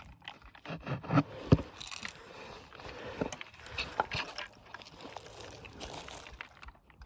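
Footsteps crunching and crackling through dry leaves and twigs on the forest floor, irregular, with a couple of sharper snaps about a second and a half in.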